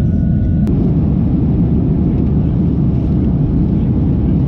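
Steady cabin roar of a Boeing 737-800 in flight, the engine and airflow noise as heard inside the passenger cabin. A faint high steady tone stops with a click less than a second in.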